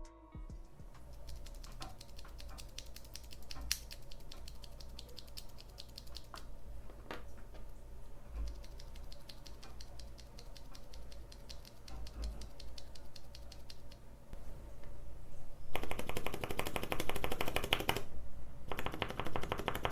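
Lubricated Cherry MX Brown tactile mechanical keyboard switches being pressed: light key clicks scattered through most of it, then two louder runs of fast typing, the first about three-quarters of the way in and the second near the end.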